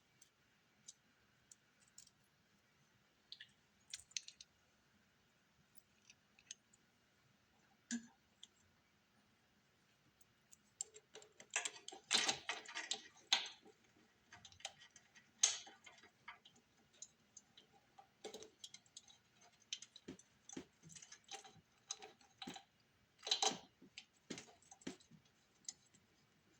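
Small metal and plastic parts clicking and rattling as a carburetor, its gaskets and mounting adapter are handled and fitted by hand: a few scattered clicks at first, then busier clusters of clicks and rattles from about halfway, loudest near the middle and again near the end.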